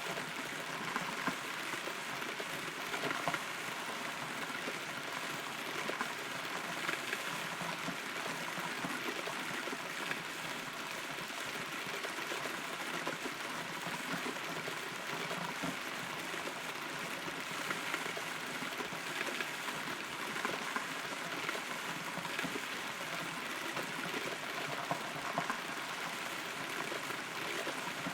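Steady rain heard from inside a hollow rotten tree trunk, a continuous patter with scattered louder drops.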